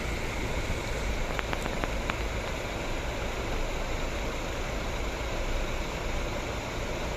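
Diesel bus engines idling in a lot of parked coaches: a steady low rumble, with a few faint clicks a little over a second in.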